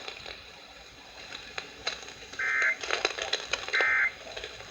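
Emergency Alert System end-of-message data bursts received over AM radio: two short, buzzy two-tone bursts about a second and a half apart, with faint radio hiss between them.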